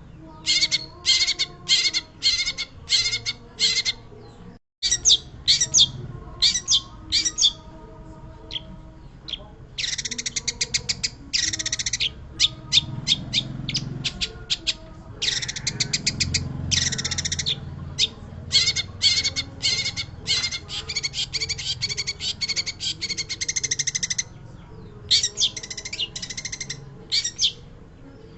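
Long-tailed shrike (pentet) singing: series of harsh, scratchy chattering notes broken by fast rattling trills, with short pauses between bursts, over a steady low background hum. The audio cuts out briefly a few seconds in.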